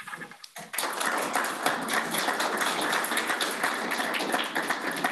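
A small audience clapping, starting under a second in.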